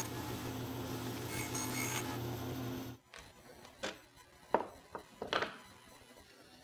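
Bandsaw running with a steady hum and hiss as it cuts small wooden thumbscrew parts free of their stock; it cuts off suddenly about three seconds in. Then a few light clicks as the small wooden pieces are set down and stacked on a wooden workbench.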